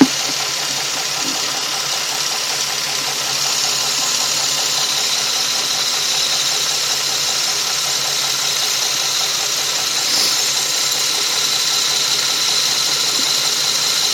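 Nissan Maxima engine running steadily with a fast, even ticking knock over a hiss, a little louder from about three and a half seconds in. The owner cannot tell whether the tick is engine knock, worn timing chain tensioners or a normal sound.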